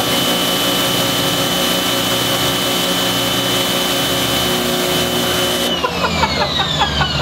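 A machine running with a steady noise and a held high whine; about six seconds in the sound changes, with several whines falling in pitch.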